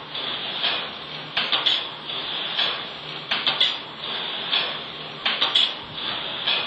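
YJ-18 automatic wire hanger forming machine running, bending PVC-coated steel wire into hangers. It repeats a cycle of clicks and clatters about every two seconds over steady machine noise.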